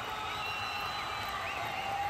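Steady outdoor background noise with faint, distant voices calling out.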